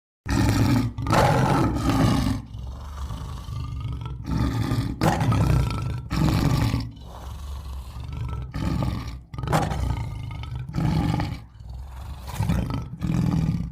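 A roar sound effect: a run of rough, deep roars about half a second to a second each, separated by short breaks.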